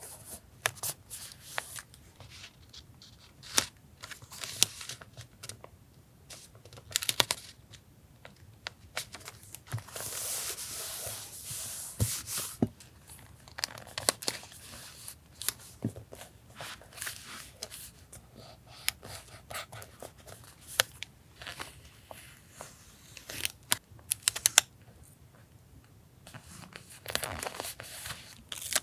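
Paper handling while collaging a journal page: stickers and paper pieces being peeled, torn, crinkled and pressed down, with scattered small taps and clicks and a longer stretch of tearing or peeling about ten seconds in.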